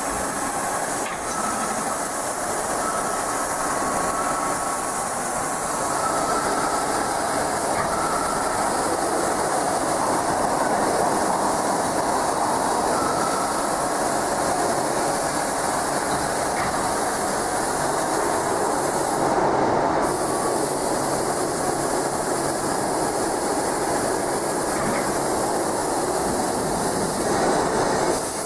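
Industrial drilling machine running, a steady loud mechanical noise with a faint whine that comes and goes.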